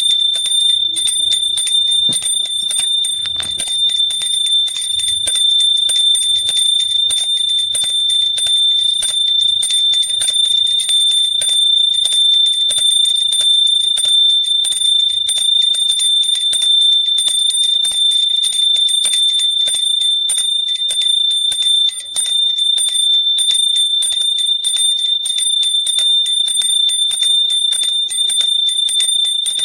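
A hand bell rung without a break, its clapper striking rapidly so the high ringing tone never dies away.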